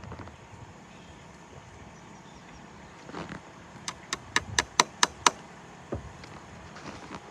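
A quick run of about seven sharp clicks, roughly four a second, over a faint steady background.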